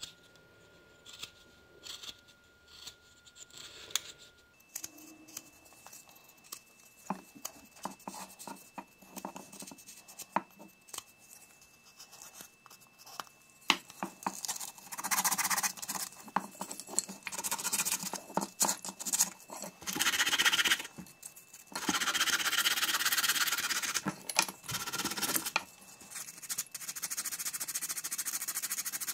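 Sandpaper rubbing back and forth over a soft pine spoon, in stretches of a few seconds each from about halfway in. The quieter first half has scattered small clicks and scrapes.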